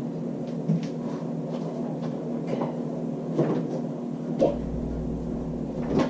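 Several light knocks and clicks over a steady low hum, with a deeper rumble joining about four seconds in.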